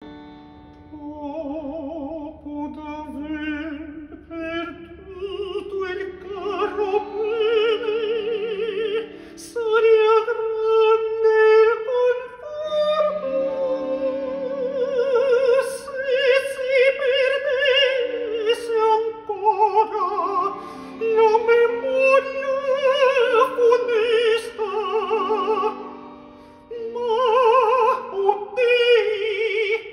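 A man singing an operatic aria in a high countertenor voice with wide vibrato, in long held phrases, over sustained instrumental accompaniment.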